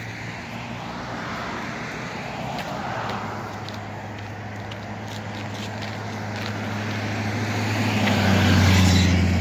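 Road traffic passing on a bridge road: a car goes by about three seconds in, then a louder vehicle with a deep engine hum swells up and passes near the end.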